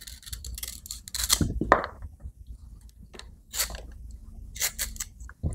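Kitchen knife cutting away the tough outer sheaths and tip of a fresh bamboo shoot: irregular crisp crunching cuts and cracks, the loudest about a second and a half in.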